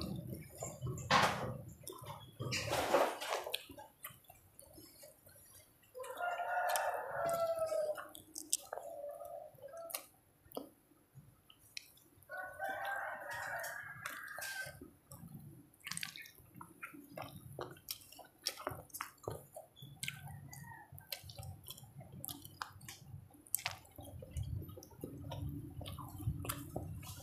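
Close-up eating sounds of rice and fish curry eaten by hand: wet chewing, lip smacks and small clicks. Two long pitched calls sound in the background, about six and about twelve seconds in, each lasting about two seconds.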